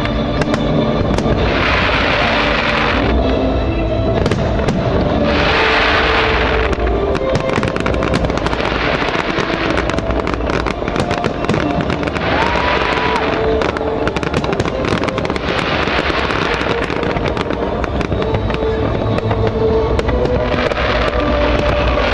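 Fireworks display: shells bursting with many sharp crackles and pops, and hissing that swells for about a second every few seconds. Music plays along with the show.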